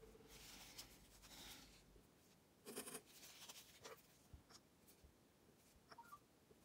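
Faint scratching and rubbing handling noise from a dotting tool and small paint pots on a tabletop, loudest in a short scratchy burst about three seconds in, with a few light clicks after it.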